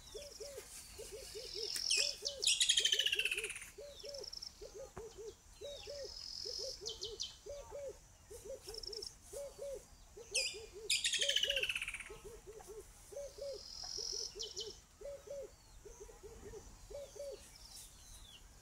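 A dove cooing over and over in short groups of two or three low notes, with small birds chirping high above. Twice, a few seconds in and again just past halfway, a mangrove kingfisher gives a loud trill that falls in pitch.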